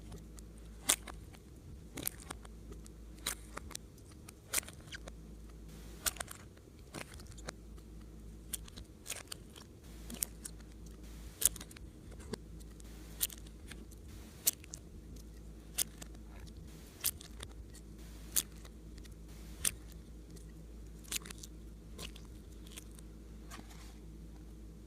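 Clay slime being pressed and kneaded by hand, giving sharp crunchy pops and clicks at a fairly steady pace of about one every second and a quarter, with softer ticks between them.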